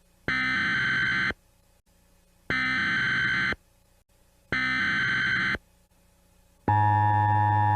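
Emergency Alert System SAME header: three identical one-second bursts of buzzy digital data tones, evenly spaced. Near the end the steady EAS attention tone starts and holds, a little louder than the bursts.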